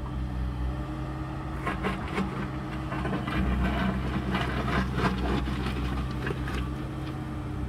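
Excavator's diesel engine running steadily while digging, with irregular scraping and knocking of the digging in soil and gravel.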